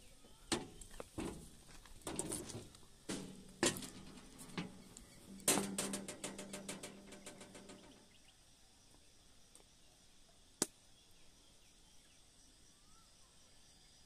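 Sandalled footsteps on the railway bridge's walkway between the rails, uneven knocks about every half-second, with a quick run of rattling ticks about halfway. After that a quiet outdoor background with faint bird chirps and a single sharp click.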